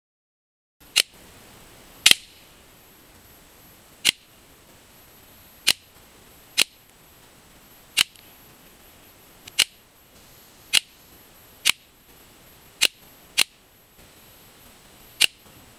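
Crosman Marksman air pistol shooting at a paper target: about a dozen sharp snaps at uneven intervals of a second or so, starting about a second in.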